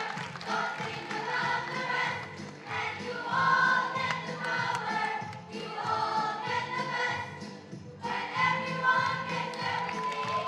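A children's choir singing a song with instrumental accompaniment, with a short break about eight seconds in.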